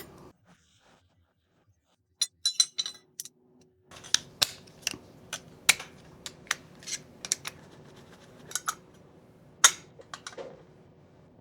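Irregular sharp clicks and taps of hard plastic headlight parts being handled and fitted. A faint steady hum comes in about four seconds in.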